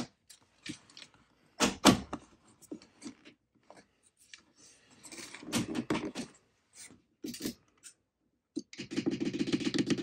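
Plastic thermostat housing being pressed and snapped onto its wall base plate: scattered sharp clicks and knocks, the loudest about two seconds in, a scraping rustle around the middle, and a rapid run of clicks near the end.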